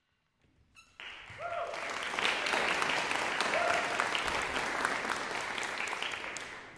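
Audience applauding, starting about a second in and dying away near the end, with a couple of short calls from the crowd.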